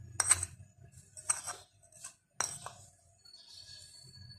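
Metal spoon clinking against a ceramic plate three times, about a second apart, as ground spices are scooped up for sprinkling.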